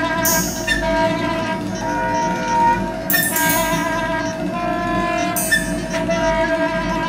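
Soprano saxophone holding a dense, reedy, chord-like tone that barely changes. Short bursts of high hiss come in about three times.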